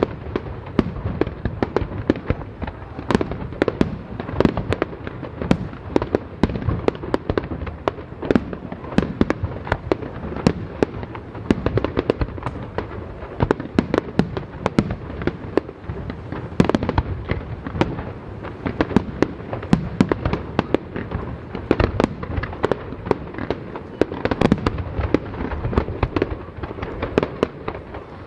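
Fireworks display: shells bursting in a dense, continuous barrage of bangs and crackles, many reports a second without a break.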